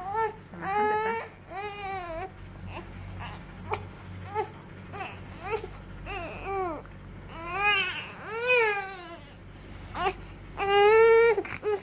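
Infant crying: a string of wailing cries with short, quieter sobs between them, the loudest wail near the end.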